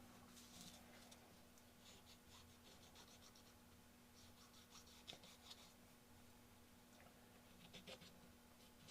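Near silence with faint, intermittent scratching and rubbing of a cotton swab wiping glue off a small model surface, in several short spells.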